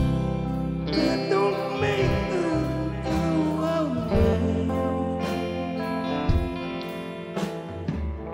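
A live rock band playing: electric guitars, bass and drums, with notes that bend in pitch, and a man singing over it.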